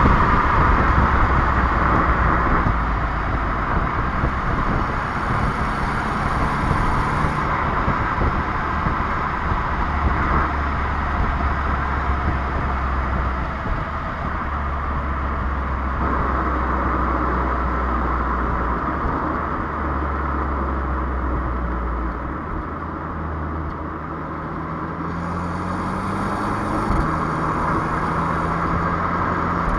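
Renault Clio 1.3 TCe turbocharged four-cylinder petrol engine running while the car drives, with steady road noise. Near the end the engine note rises for a few seconds, then drops suddenly as the EDC dual-clutch gearbox shifts up.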